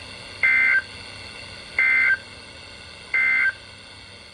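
Emergency Alert System end-of-message data signal: three short, equal bursts of two-tone digital data about 1.4 seconds apart, marking the end of the severe thunderstorm warning. A steady receiver hiss runs underneath.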